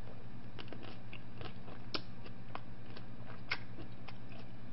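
A person chewing food close to the microphone: scattered soft, wet mouth clicks and smacks at an irregular pace, with a couple of sharper clicks around the middle, over a steady low hum.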